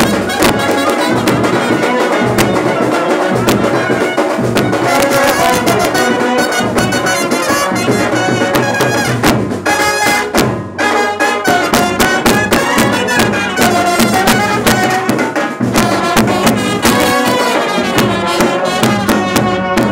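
Indian band-party brass band playing: trumpets and other brass over a steady drum beat, with a short dip about halfway.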